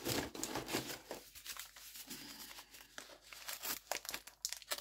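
Cardboard packing rustling, scraping and crinkling as a rolled cardboard tube is lifted out of a cardboard shipping box, in irregular small clicks and rustles.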